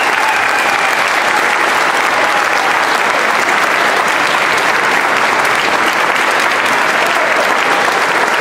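Large concert audience applauding: steady, loud, dense clapping that does not let up.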